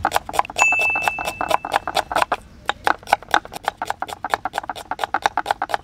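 Knife chopping onions on a wooden chopping block: a quick, even run of sharp chops, about seven or eight a second.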